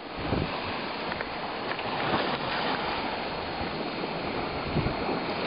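Steady rushing noise of wind and water, with a few soft low knocks.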